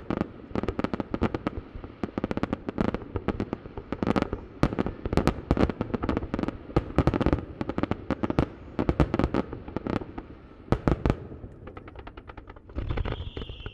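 A barrage of firework shells bursting in quick succession, heard from about a kilometre away, each bang trailing off in echo. The bangs thin out about eleven seconds in, and near the end a long whistle starts that slowly falls in pitch.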